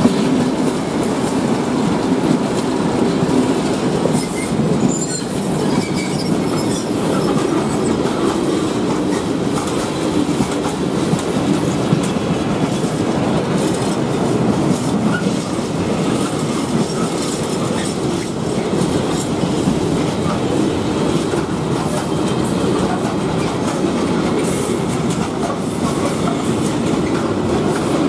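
Freight train wagons rolling steadily past at close range: a continuous rumble of steel wheels on the rails with clattering over the rail joints.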